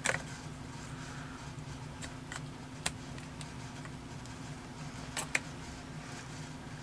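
Several sharp, scattered clicks and light knocks from a resin ball-jointed doll body's parts as its legs and hip joints are bent and posed, over a steady low hum.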